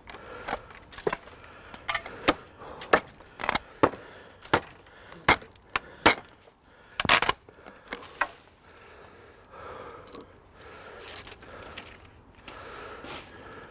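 Hatchet chopping branch wood on a stump: about a dozen sharp, irregular chops over the first eight seconds. After that, quieter rustling and handling of the cut wood.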